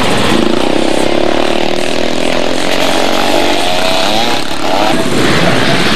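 Motorcycles racing on a dirt track, their engines climbing in pitch as they accelerate out of the bend, with the pitch changing again a little past halfway.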